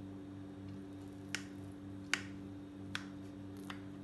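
A kitchen knife cutting through soft semolina dhokla and clicking against the ceramic plate beneath: four sharp clicks, under a second apart, over a steady low hum.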